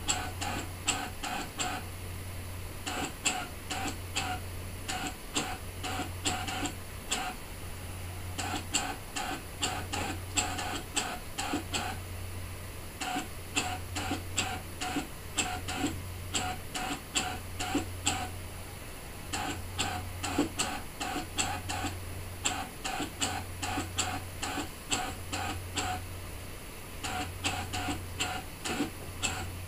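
Brother ScanNCut DX SDX1200 cutting machine drawing with a pen: the carriage motors run in short bursts with rapid ticking, about four or five ticks a second, over a low motor hum that cuts in and out every second or so.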